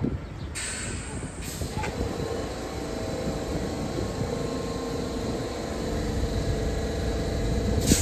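R46 subway train standing at the platform: a sharp thump at the start, a couple of short hisses in the first two seconds, then a steady mechanical hum with a held tone that slowly grows louder, and another short hiss near the end.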